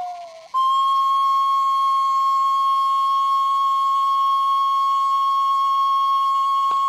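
Solo flute music: a brief lower note, then one long high note held steady for about six seconds, with a single click near the end.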